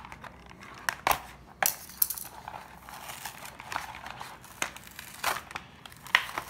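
Stiff clear plastic blister packaging crackling and snapping irregularly as it is pried and peeled off its cardboard backing.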